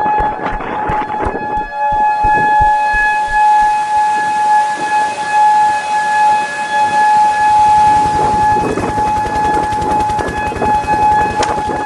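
An alarm siren sounding one steady tone that holds the same pitch throughout, without rising or falling. About eight seconds in, a fast, even low pulsing joins it.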